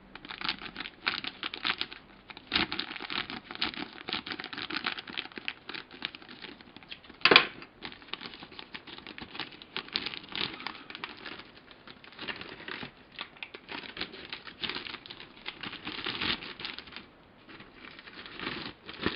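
Plastic model-kit sprues and their plastic bags being handled: a dense, irregular run of small clicks, rustles and crinkles, with one sharper knock about seven seconds in.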